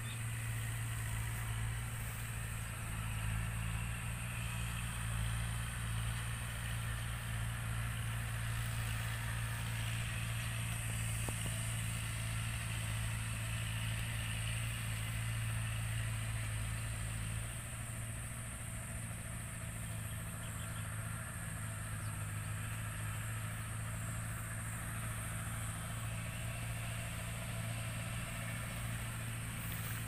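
A motor running steadily with a low hum, under a thin, constant high-pitched hiss. The hum drops slightly a little past halfway through.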